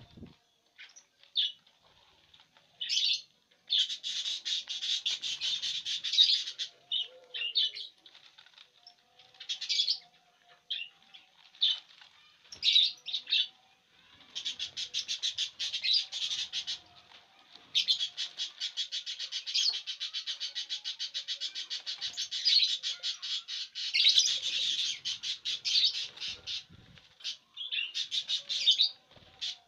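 Fischer's lovebirds chattering: long runs of rapid, high-pitched twittering with short chirps between them.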